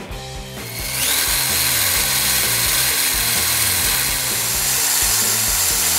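Cordless drill with a 3 mm masonry bit, hammer function off, drilling out the wall plug around a rusted screw in a ceramic-tiled wall. The motor spins up about a second in, then runs at a steady speed.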